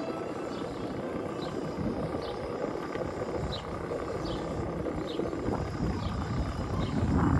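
Wind rushing over the microphone and a bicycle's tyres rolling over paving stones at a steady ride, with a few short high chirps.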